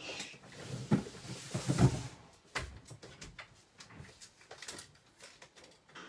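Rummaging while a torch is fetched: two louder knocks about one and two seconds in, then a run of fainter clicks and taps.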